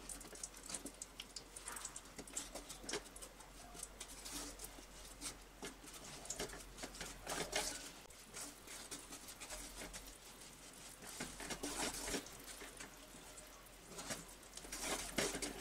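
Faint, irregular crackling of a block of jaggery melting and bubbling in hot ghee in a non-stick pan. Light scrapes and taps come from a wooden spatula breaking it up and stirring it.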